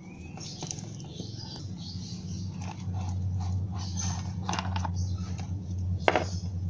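Drill chuck being unscrewed by hand from an electric drill's spindle: small metal clicks and scraping, with a sharp click about six seconds in. A steady low hum runs underneath.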